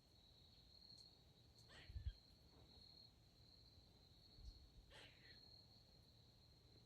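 Faint, steady, high-pitched insect trilling in quiet woods. A few short sliding calls and two soft low thumps sound over it.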